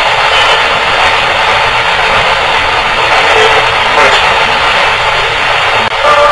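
Loud, steady static-like hiss from a heavily amplified ghost-hunting audio recording, in which the investigators caption a spirit voice saying 'help me' and 'Chris'.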